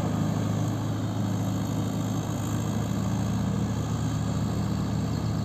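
Mahindra Yuvo 575 4WD tractor's diesel engine running steadily at an even pitch as it pulls a trailer slowly through a muddy paddy field, with a combine harvester's engine running close by.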